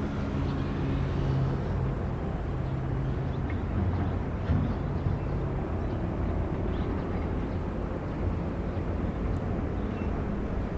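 Diesel engine of heavy construction machinery running steadily with a low rumble. A pitched engine note in the first half fades away about five seconds in.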